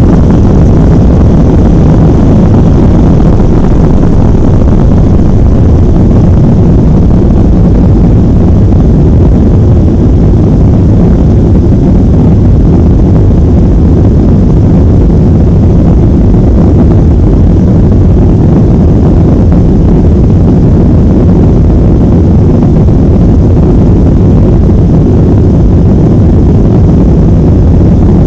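Boeing 737-800 jet engines at takeoff thrust, heard inside the passenger cabin: a loud, steady rumble through the takeoff roll, liftoff and initial climb.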